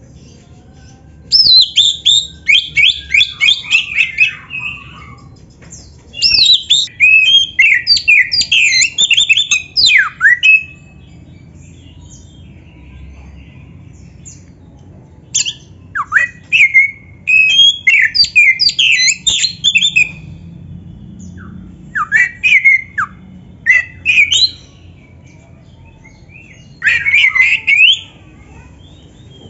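Oriental magpie-robin (kacer) singing in about five bursts of fast, varied whistled and chattering phrases, with pauses of a few seconds between them.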